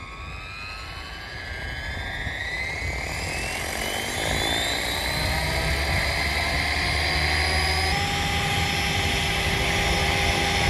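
Blade 500X electric RC helicopter spooling up: the motor and rotor whine rises steadily in pitch over the first few seconds as the head comes up to speed, then holds steady as the helicopter lifts off.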